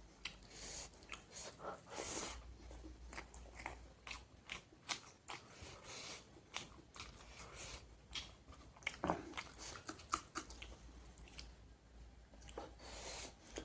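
Close-up eating sounds: a person biting and chewing pork curry with raw onion and salad, with many small crunchy clicks and wet mouth noises throughout.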